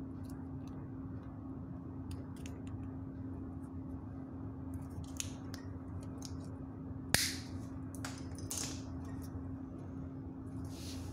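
Diagonal wire cutters snipping notches into a small white plastic box lid: scattered clicks and a few crisp snaps, the loudest a sharp snap about seven seconds in. A steady low hum runs beneath.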